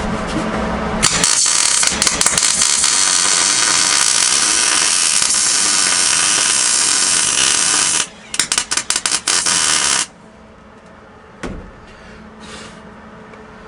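Electric welder laying a bead: a loud, steady crackling hiss for about seven seconds, then a run of short sputtering bursts that stop about ten seconds in. Then one brief knock.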